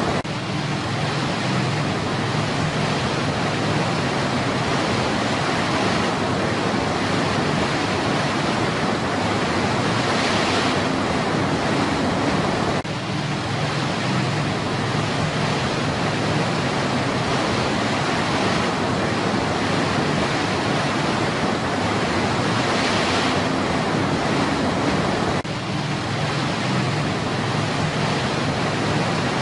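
Stream water rushing over a rocky cascade, a steady wash of white-water noise, with two brief dips in level about halfway in and near the end.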